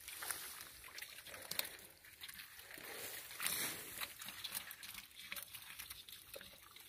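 Hands groping through wet mud and grass: faint squelching and rustling with scattered small clicks, a little louder about three and a half seconds in.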